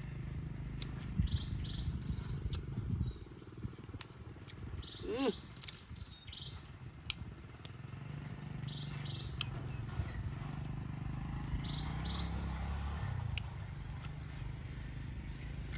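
Outdoor countryside ambience: short high chirps every few seconds, a single rising-and-falling call about five seconds in, scattered clicks, and a steady low rumble underneath.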